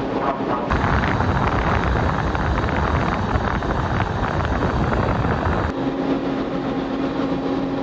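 Steady noise of a large car ferry's engines and machinery heard from the open deck, with wind on the microphone. A dense, louder stretch of noise cuts in about a second in and stops suddenly a little before six seconds, leaving a steady low hum.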